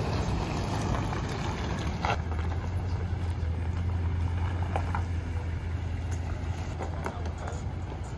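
Toyota Tundra pickup's V8 engine running at low speed with a steady low hum, strongest about two seconds in and fading slightly toward the end. A few faint ticks sound over it.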